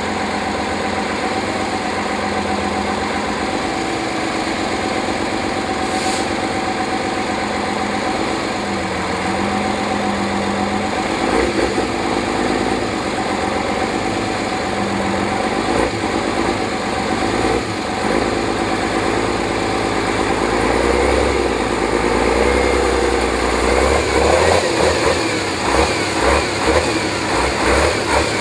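Praga V3S trial truck's engine running under load on a steep sand climb, held steady at first and then rising and falling in pitch with the throttle, with quicker revs near the end as the truck climbs out.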